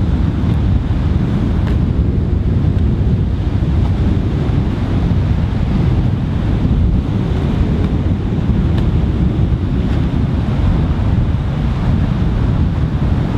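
Wind rumbling steadily on the microphone, with surf washing on the shore underneath.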